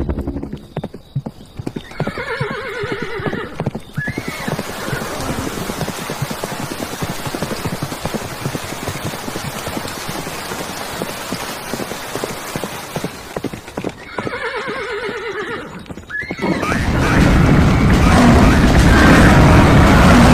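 A horse sound effect: a whinny followed by a long run of galloping hoofbeats, played twice. A loud, low, noisy sound cuts in near the end.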